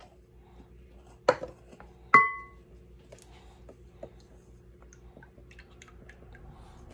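A measuring cup knocking against a glass mixing bowl: a sharp knock about a second in, then a louder clink that rings briefly with a clear tone, followed by a few faint taps.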